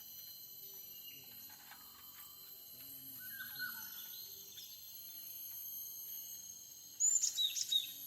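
Wild small songbirds calling: scattered faint chirps, then a sudden loud run of quick high chirps near the end from a bird close by. A faint steady high hum lies behind them.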